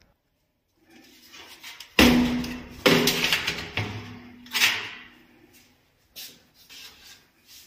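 Metal-framed screen door being worked: a loud bang about two seconds in, a second bang a moment later and a third about halfway through, the frame ringing briefly after the first two, then lighter clicks and rattles near the end.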